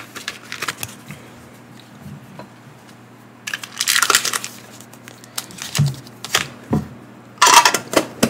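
Booster packs and plastic inserts crinkling and rustling as they are taken out of Pokémon mini tins, with scattered clicks and light knocks of the metal tins. The crinkling comes in two louder bursts, one about three and a half seconds in and one near the end.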